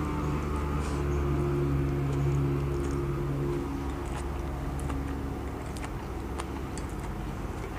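Chewing and eating sounds from a mouthful of japchae glass noodles, with scattered small clicks, over a steady low mechanical hum like an engine running, which is louder for the first three seconds or so and then eases.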